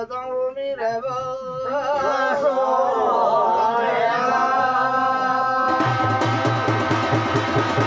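Garhwali jagar singing: a voice holding long, drawn-out notes, with other voices overlapping it. About six seconds in, a fast, even drum beat of roughly five strokes a second comes in under the singing.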